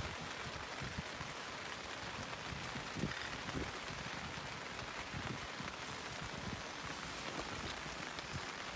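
Steady rain falling, a continuous hiss with irregular low taps of drops throughout.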